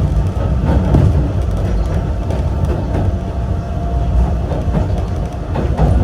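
A Yokkaichi Asunarou Railway 260-series narrow-gauge electric train, which has nose-suspended traction motors, running along the track with a steady rumble. Several sharp knocks sound from the wheels and rails, a couple about a second in and more near the end.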